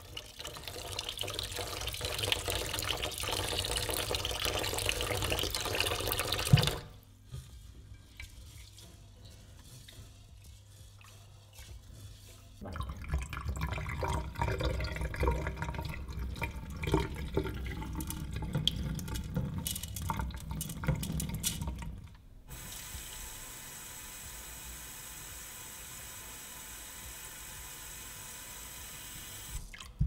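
Short-grain rice being washed in a rice cooker's inner pot. Tap water runs onto the rice for the first few seconds. Hands then swish the rice in the water and tip the cloudy water out of the pot. A steady, quieter hiss of water fills the last third.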